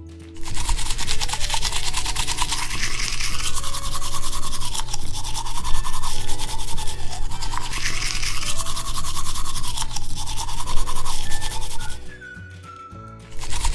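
Toy toothbrush scrubbing Play-Doh teeth close to the microphone, a loud rapid brushing that stops briefly near the end and starts again.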